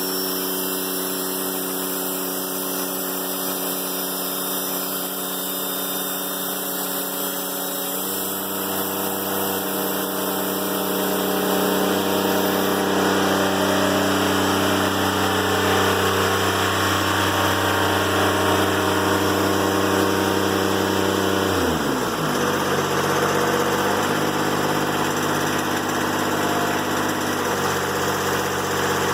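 Diesel engine of a Timberking 1400 sawmill running steadily. About eight seconds in, a lower hum joins and it grows louder. Around twenty-two seconds the pitch drops quickly and settles lower.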